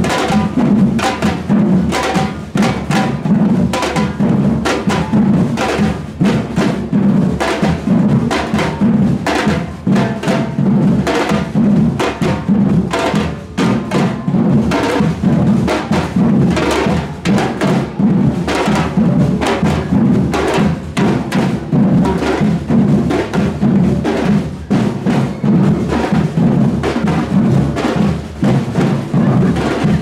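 A street drum band plays a steady, driving rhythm throughout. Deep, large metal-shelled bass drums are beaten with mallets, and smaller metal snare-type drums are played with sticks, giving many sharp stick hits over the booming low beat.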